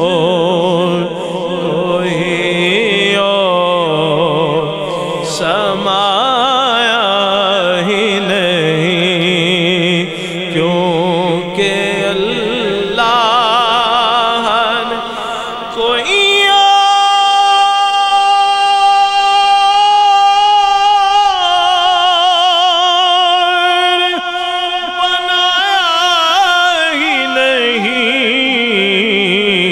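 A man's voice singing a naat, drawing out a line of the refrain in long, ornamented notes with a wavering vibrato. Past the middle he holds one high note steadily for about five seconds before it breaks back into ornamented runs.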